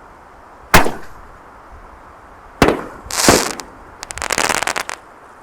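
6-inch double-break canister firework shells: two sharp booms about two seconds apart, then a short hiss and a rapid crackle of small pops lasting nearly a second.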